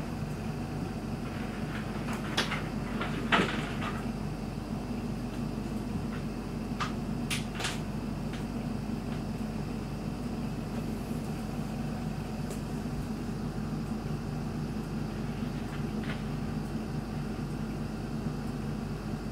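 Steady low indoor hum with a few short clicks and knocks scattered through it, the loudest about three seconds in and a quick cluster near the middle.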